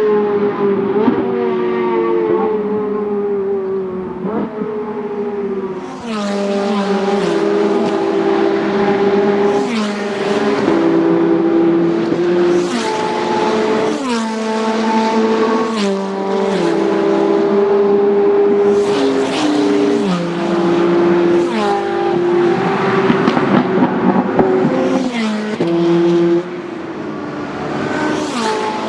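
Ferrari 458 Italia and 430 Scuderia V8 sports cars at full throttle on a track, several in succession. Their high-pitched engine notes repeatedly climb and then drop with quick gear changes and fly-bys.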